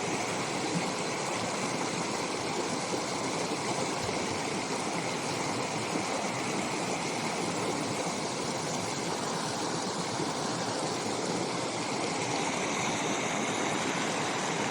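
A brook running steadily, an even rushing of water.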